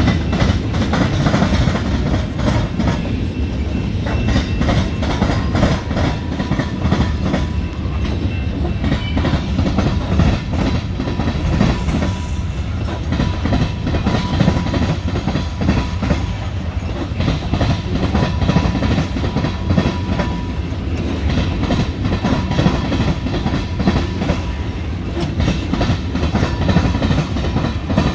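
Freight cars of a CSX train rolling steadily past, a continuous deep rumble with a rapid, irregular clatter of steel wheels striking the rail joints and the diamond crossing.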